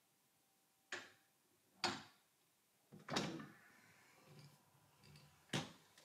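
Door with a GEZE TS 5000 SoftClose overhead door closer being worked: a few sharp clicks and knocks from the door hardware, spread over several seconds. The third, about three seconds in, is the loudest and rings briefly.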